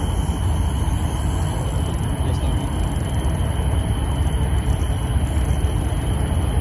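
Steady, loud low rumble of outdoor background noise with no distinct events.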